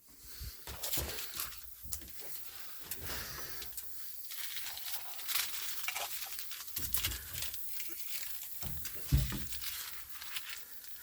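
Irregular rustling, scraping and light knocks of handling noise, with a couple of duller thumps about seven and nine seconds in.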